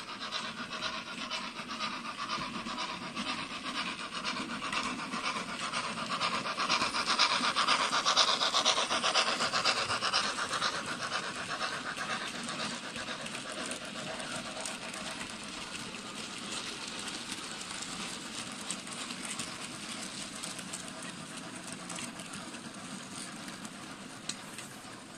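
Bachmann J11 OO-gauge model steam locomotive with a factory-fitted sound decoder running with its goods train, its chuffing mixed with the rasping rumble of model wheels on the track. The sound is loudest as the train passes close, about eight seconds in, then slowly fades as the wagons go by.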